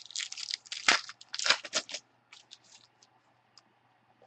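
Crinkling and crackling of trading-card packaging being handled, a cluster of sharp bursts over the first two seconds, loudest about one second and a second and a half in, then a few faint ticks.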